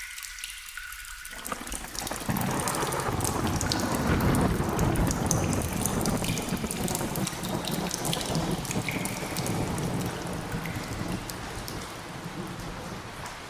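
Rain falling with scattered drips. About a second and a half in, a low rumble of thunder swells up under the rain, then slowly fades.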